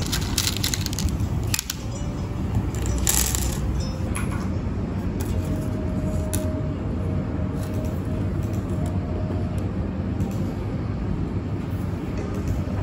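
Small plastic letter beads clicking and clattering against each other and the desk as they are picked out and sorted by hand. The clicks come in clusters, mostly in the first few seconds, over a steady low hum.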